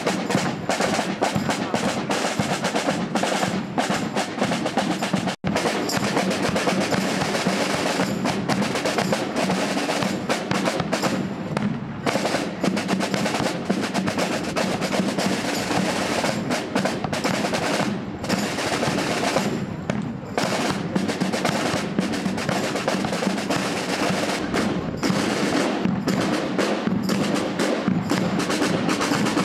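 Marching drum band playing snare drums over a bass drum: a steady rhythm of rapid snare strokes and rolls. The sound drops out for an instant about five seconds in.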